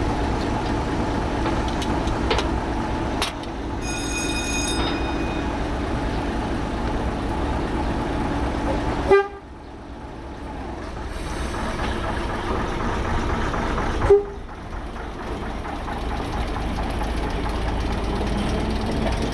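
Narrow-gauge diesel locomotive's engine idling steadily, with a short high-pitched toot about four seconds in. Two sharp clicks come about nine and fourteen seconds in; after the first the engine sound drops and then slowly comes back up.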